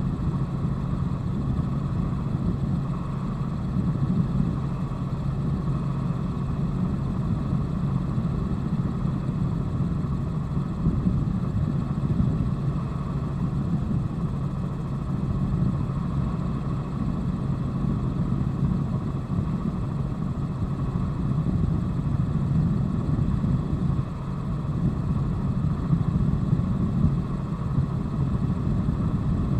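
Helicopter in flight heard from inside the cabin: a steady, unbroken drone of engine and rotor.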